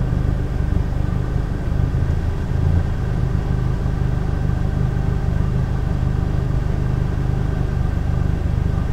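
Steady low hum of a car engine idling, heard from inside the cabin.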